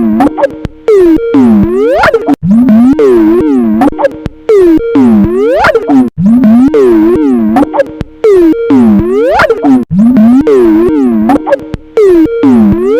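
Heavily distorted, pitch-warped Skype ringtone looping, its synth notes swooping down and back up about once a second, very loud and clipped.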